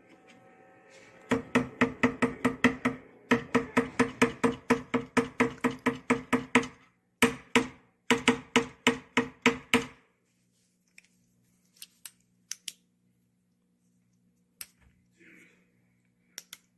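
Camera shutter clicking in rapid burst-mode runs, about six clicks a second, in several bursts over most of the first ten seconds. After that come a few single shutter clicks.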